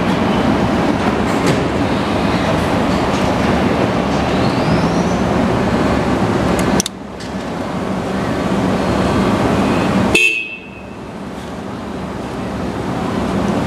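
1995 Honda GL1500 Gold Wing's flat-six engine idling steadily. There is a sharp click about seven seconds in and a brief horn honk about ten seconds in.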